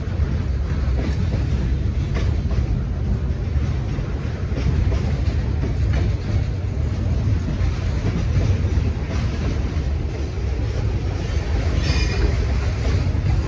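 Freight train of boxcars rolling past at close range: a steady low rumble of steel wheels on rail, with scattered clicks as the wheels cross rail joints.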